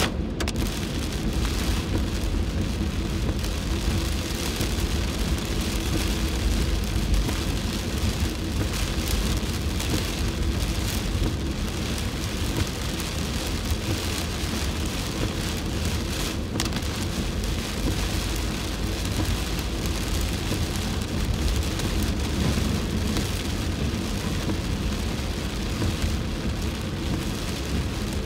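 Heavy rain beating on a car's windshield and roof, heard from inside the moving car, over a steady low rumble of tyres on the wet road.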